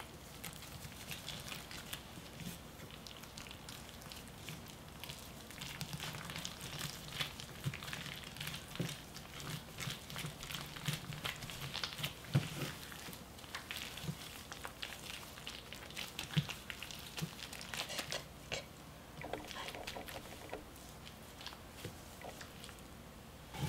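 Rubber-gloved hands squeezing and folding salted napa cabbage leaves around wet red-pepper kimchi filling: soft wet squishing and leaf crinkling in short, irregular clicks.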